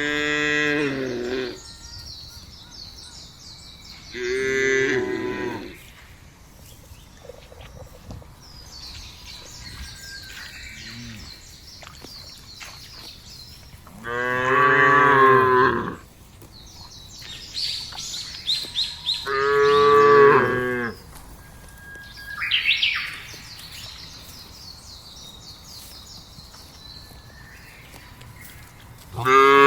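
Cows mooing in a field: four long moos spread several seconds apart, and another beginning at the very end. Birds chirp in the gaps between the moos.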